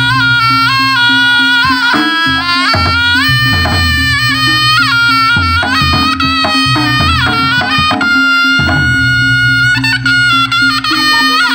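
Live Javanese jaranan ensemble music: a slompret shawm plays a stepping reed melody over kendang drumming and a steady low held tone.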